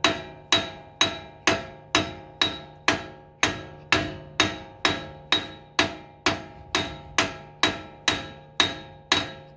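Ball-peen hammer striking a rusty wheel stud in a car's rear hub, about two ringing metal-on-metal blows a second in an even rhythm. The stud is stuck and is not driving out of the hub.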